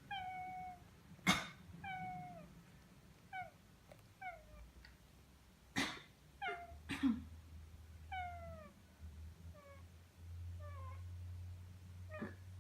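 A domestic cat meowing over and over in short calls, most falling in pitch, in reaction to a person's sharp coughs: one about a second in, the loudest, two more around six to seven seconds and a fainter one near the end.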